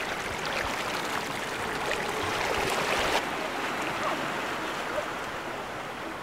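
Sea water washing and lapping over shoreline rocks, a steady wash with a few small splashes. The high hiss drops away about three seconds in.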